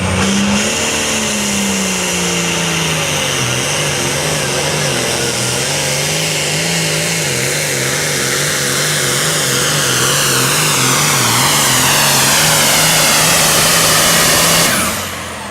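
Super Farm class pulling tractor's diesel engine at full throttle under load as it drags a weight-transfer sled, the engine note wavering up and down for the whole run. The engine cuts off near the end.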